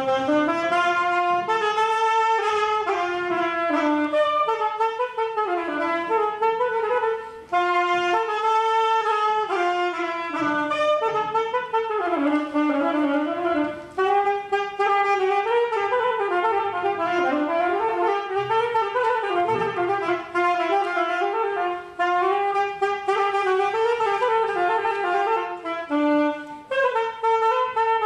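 Instrumental music led by a wind instrument playing a slow melody with a harmony line, in phrases of several seconds separated by brief breaks, the opening phrase coming round again.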